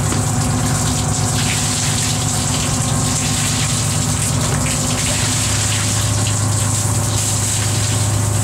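Fishing boat's machinery humming steadily, with water gushing from a deck wash hose.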